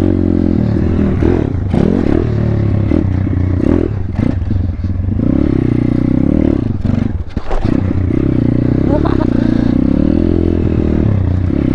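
Thumpstar 140cc pit bike's single-cylinder four-stroke engine running as it is ridden, its revs rising and falling, with scattered clattering and scraping knocks; the engine briefly drops off about seven seconds in.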